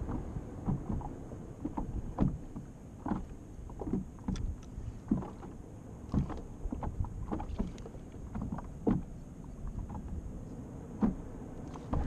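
Small waves slapping irregularly against the hull of a canoe, short knocks and splashes about once or twice a second, over a low rumble of wind on the microphone.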